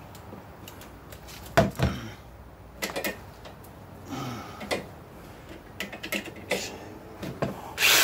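Scattered knocks and clicks of a power jigsaw being handled against a plastic ice chest lid, then the saw starts up and begins cutting just at the end.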